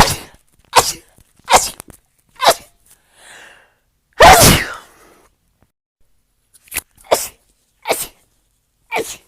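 A woman sneezing in rapid succession, about nine sharp sneezes, the longest and loudest one about four seconds in.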